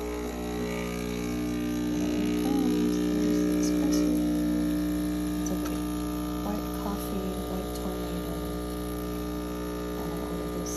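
Espresso machine with a built-in milk frother running through a two-shot latte cycle, giving a steady electric hum that swells for a few seconds partway through and then settles.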